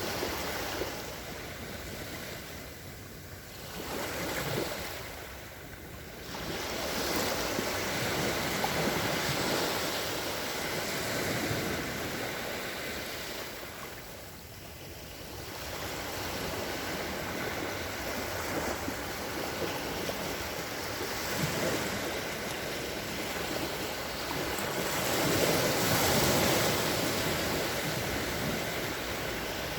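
Calm sea waves washing onto the shore, swelling and ebbing every few seconds, with the loudest swell near the end.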